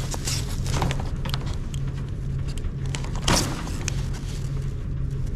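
Utility knife cutting and scraping through red PEX radiant-heating tubing, with handling scrapes and clicks and a louder scrape about three seconds in as the cut pipe is pulled free, over a steady low machine hum.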